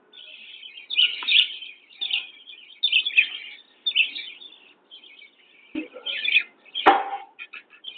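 A flock of budgerigars chirping and chattering in quick overlapping calls, with a single sharp knock about seven seconds in.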